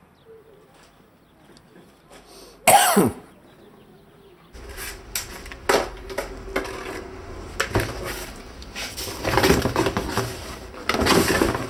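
One short, loud cough about three seconds in. Then, from about four and a half seconds, belongings being packed into a cardboard box: rustling and scattered knocks and clunks of objects handled and dropped in, over steady room noise.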